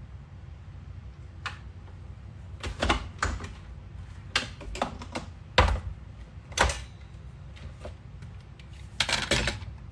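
Handling noises in a kitchen: a series of separate clicks and knocks, with a louder cluster near the end.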